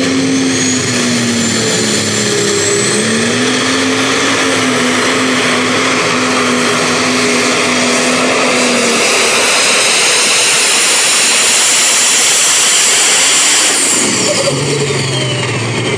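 Pro Stock pulling tractor's turbocharged diesel engine at full throttle under load while hauling the sled, its note wavering and a high turbo whine building up. About fourteen seconds in the throttle comes off: the whine falls away in pitch and the engine drops back.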